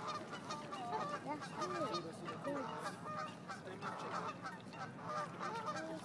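A chorus of waterfowl calling at a pond: many short calls overlapping one another, each rising and falling in pitch.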